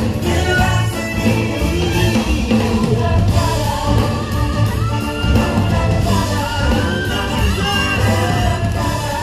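Lively show music with singing and a steady beat.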